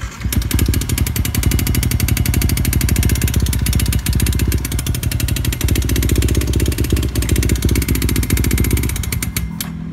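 Yamaha Y15ZR's single-cylinder four-stroke engine running with a loud, rapid, even mechanical clatter, a helicopter-like chopping. It is the sign of a failed timing gear.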